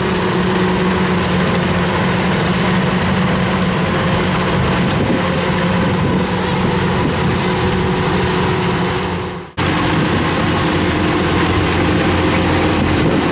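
Kubota DC-93 combine harvester's diesel engine and threshing machinery running steadily under load while harvesting rice. The sound breaks off for an instant about nine and a half seconds in, then carries on.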